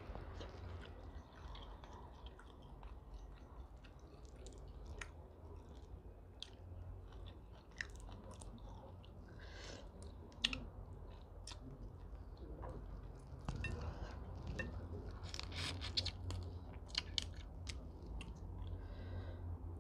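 A person chewing and biting food close to a clip-on microphone, with scattered irregular crackly clicks as steamed prawns are peeled by hand; the clicks come thicker in the second half.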